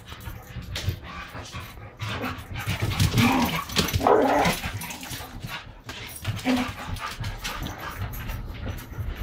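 Two Australian Shepherds playing rough and chasing, giving yips and barks, with the quick clatter of their claws on a tile floor. The calls are loudest a few seconds in.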